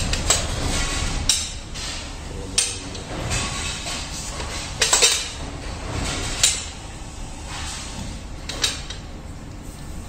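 Metal clanks and knocks from a manual rotary ice cream cone filling and crimping machine being worked by hand: its lever press and stainless steel turntable. About six sharp knocks come at irregular moments, several close together about five seconds in, over a steady low background.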